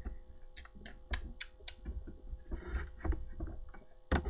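Computer mouse clicking: a quick run of five sharp clicks starting about half a second in, then a short rustle and a few more scattered clicks. A faint steady electrical hum sits underneath.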